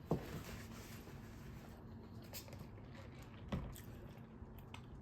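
Faint eating sounds in a quiet room: soft chewing and food-handling noises with scattered small clicks, and two brief, slightly louder soft sounds, one at the very start and one about three and a half seconds in.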